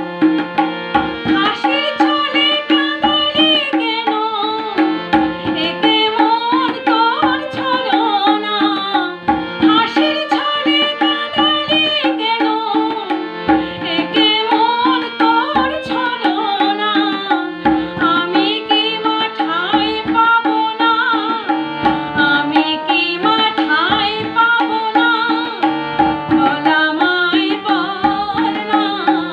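Woman singing a Bengali Shyama Sangeet devotional song, accompanying herself on harmonium, with tabla keeping a steady rhythm underneath.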